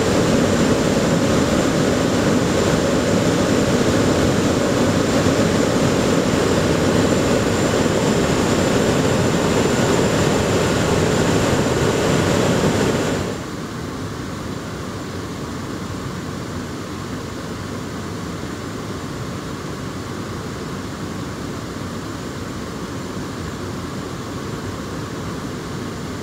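Ride noise inside an R179 subway car on the move: a steady rumble of wheels and running gear with a thin high whine over it. About halfway through it drops suddenly to a quieter, steady hum.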